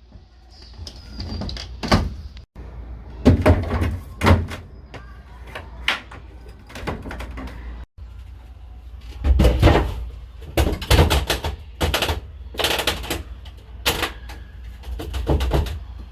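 A run of clunks, knocks and clatters of hard objects being handled and set down, busiest in the second half, with a low rumble underneath. The sound breaks off abruptly twice.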